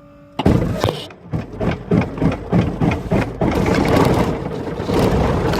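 Grumman light aircraft's piston engine starting: cranked and firing unevenly for about three seconds, then catching and running steadily.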